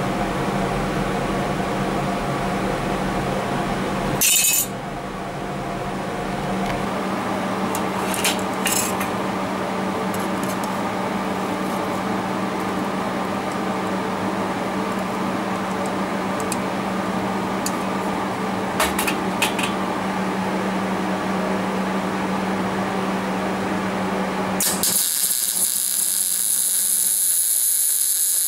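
A steady machine hum with a few clinks of sheet steel being handled and clamped. About 25 seconds in, a MIG welding arc strikes and runs as a loud crackling hiss, plug-welding a 6 mm hole in a thin steel strip.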